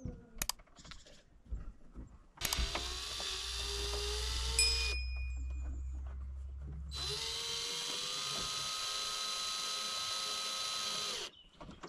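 A cordless drill running in two long runs, each spinning up as it starts and cutting off suddenly, with a few sharp clicks before the first run.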